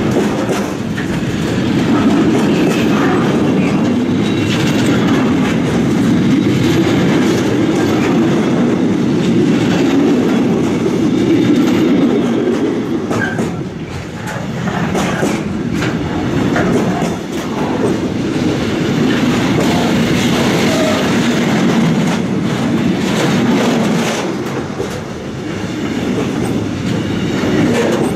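Loaded intermodal container wagons of a freight train rolling steadily past at close range. The wheels rumble on the rails, with repeated clicks as they run over the rail joints.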